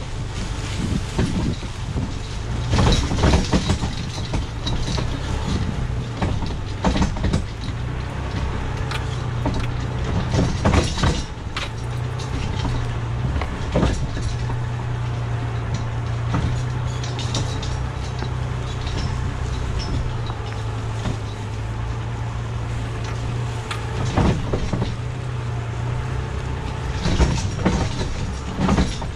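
Jeep Cherokee's engine running steadily as it tows a loaded log arch over rough woodland ground, with the arch and hitch clanking and rattling every few seconds as it bounces.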